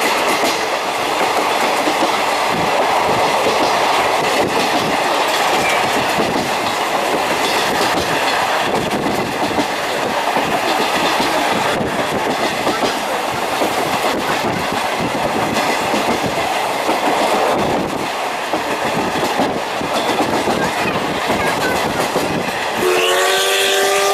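Old-type passenger coach running on jointed rail, heard through an open window, with the wheels clicking over the rail joints. About a second before the end, steam locomotive C61 20's whistle starts: several steady tones sounding together.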